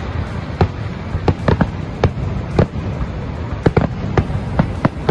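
Fireworks bursting overhead: about a dozen sharp bangs in quick, irregular succession over a steady low rumble.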